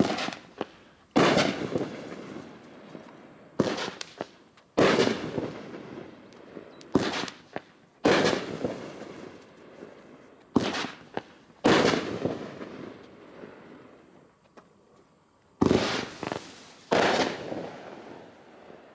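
The Chief, a 500-gram consumer firework cake, firing shot after shot: about a dozen sharp bangs, each trailing off in a long echo. There is a lull of a few seconds before the last two.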